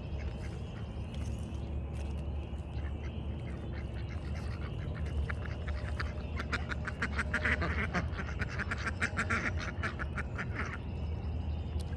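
A flock of domestic ducks quacking in quick, rapid runs, building to their loudest past the middle and stopping about a second before the end, over a steady low hum.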